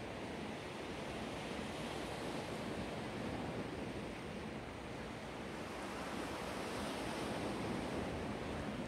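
Black Sea waves washing against the shore: a steady surf wash that swells and eases only slightly.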